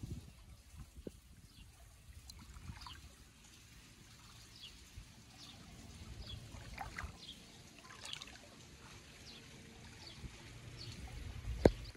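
Quiet outdoor ambience: a low steady rumble with faint, scattered short high chirps and an occasional faint click.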